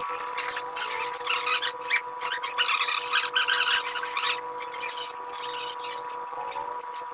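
Barber's scissors snipping beard hair: a quick run of crisp snips that thins out after about four seconds.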